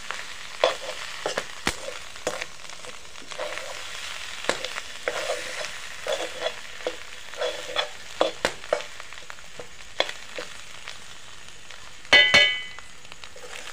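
Fish roe frying in oil in an aluminium kadai, stirred and scraped with a steel spoon: a steady sizzle with frequent short scraping clicks. Near the end a single loud, ringing metal clang.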